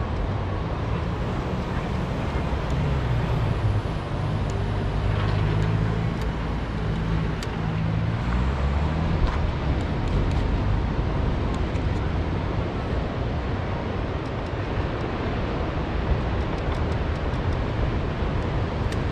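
A motor vehicle engine running nearby, a low hum that fades after about nine seconds, over a steady outdoor rush of wind.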